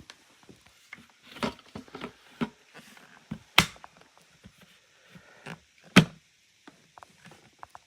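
Vacuum cleaner parts being handled and fitted back together: scattered clicks and knocks, two of them louder, about three and a half and six seconds in.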